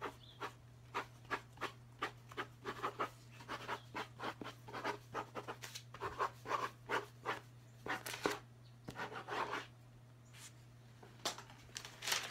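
Pen scratching on paper held on a clipboard, in many short irregular strokes with a brief pause near the end. A steady low hum runs underneath.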